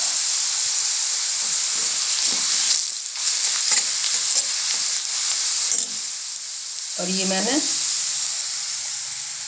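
Onion and ground spices sizzling in hot oil in a steel kadai, with a steel spoon scraping and stirring through the masala. It is the bhuna stage, the spices frying in the oil.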